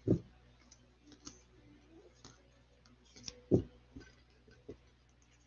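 Hard plastic trading-card holders clicking and clacking against each other as they are picked up and set down on a stack. Two sharp clacks stand out, one at the start and one about three and a half seconds in, with lighter clicks between.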